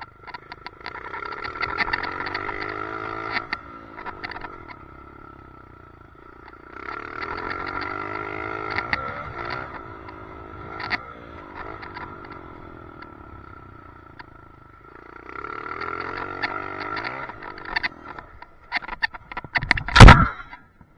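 A dirt bike engine revs up and eases off in three bursts, its pitch rising and falling, with rattling clicks and a steady high whine under it. Near the end comes a single loud bang.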